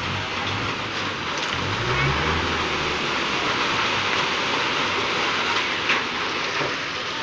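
Tractor engine running under strain. Its pitch rises about two seconds in and it drops away about a second later, under a steady loud hiss of noise.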